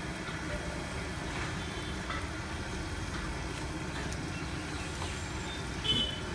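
Steady low rumble of outdoor street ambience, with a few faint clicks and a short high-pitched tone near the end.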